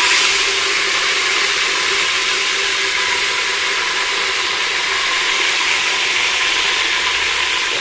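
Raw chicken pieces sizzling in hot oil in an aluminium pressure cooker as they are dropped in: a loud, steady frying hiss.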